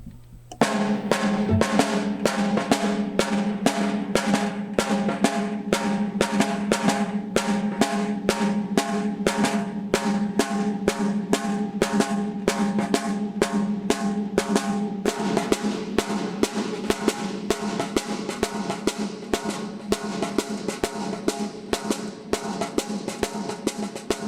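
Caixa de guerra (Brazilian snare drum) playing the axé rhythm: a fast, steady pattern of strokes with a ringing drum tone, starting about half a second in.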